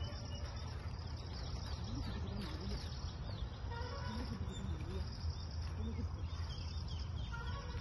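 Insects chirring in a steady, finely pulsing high trill over a low rumble.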